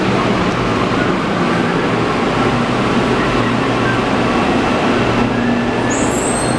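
Santiago Metro train standing at the platform, its running equipment giving a steady low hum over the general rumble of the underground station. A high-pitched tone sets in near the end.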